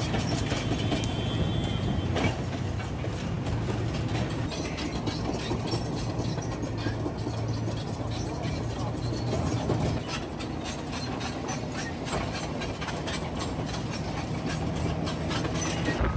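Heavy tracked bulldozer running: a steady low diesel drone with frequent metallic clanking and knocking from its tracks and blade.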